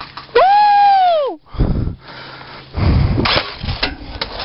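A loud pitched squeal lasting about a second, holding its pitch and then sliding down, followed by heavy knocks and scuffing as the rifle is bumped and moved against the wooden bunker wall.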